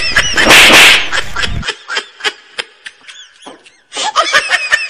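A loud slap-like hit about half a second in, followed by a string of short chirps and sharp clicks.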